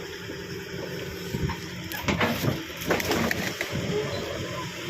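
Backhoe engine running steadily under load while a tree is pushed. A cluster of sharp cracks and snaps comes about two seconds in and lasts a second or so: wood and branches breaking.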